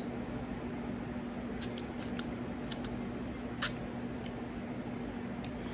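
Eating sounds from someone picking at and chewing fried chicken: a scattering of short, sharp mouth and finger clicks and smacks, over a steady low hum.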